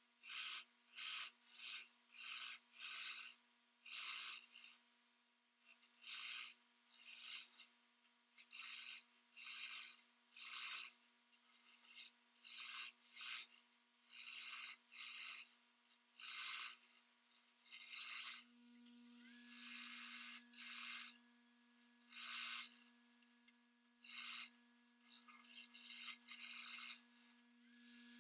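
Repeated rasping, rubbing strokes on wood, about one a second with short pauses, over a faint steady hum. Near the middle the strokes become longer and more drawn out.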